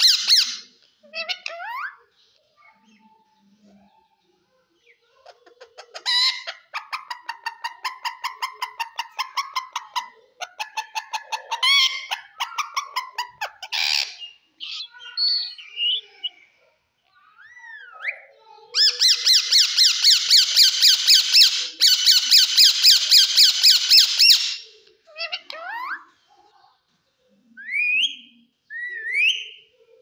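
A caged rose-ringed parakeet (Indian ringneck) calling: several bursts of rapid repeated harsh squawking notes, the loudest lasting a few seconds past the middle. Between the bursts come short rising whistled chirps.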